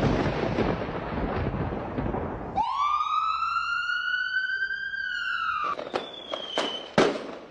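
Edited-in sound effects: a crackling noise, then one long wailing tone that rises, holds for about three seconds and falls away, followed by a few sharp clicks.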